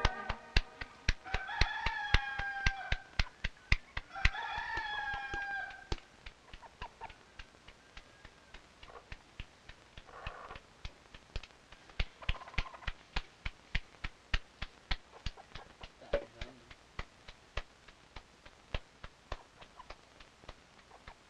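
A rooster crows twice in the first six seconds over a steady run of sharp slaps, about three or four a second, from hands patting out corn tortillas; the slapping goes on alone after the crows.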